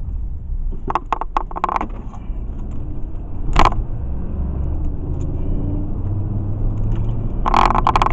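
Steady low rumble of a car driving at low speed, heard inside the cabin. A few brief clicks or knocks come through it, the sharpest about three and a half seconds in.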